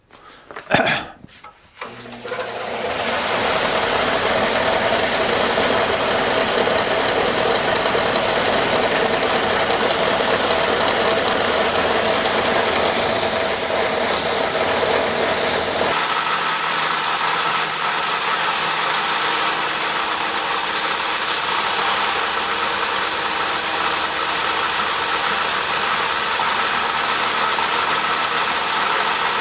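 Belt sander motor starting up about two seconds in and running steadily, sanding small wooden pattern pieces. About halfway through the sound changes: the low hum drops away and a steady higher tone comes in.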